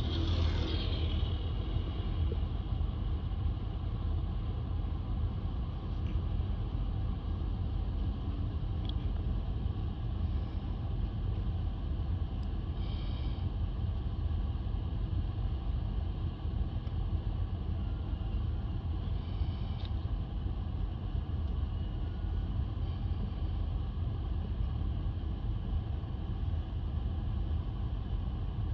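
Street traffic noise: a steady low rumble of passing cars, with a short falling squeal right at the start.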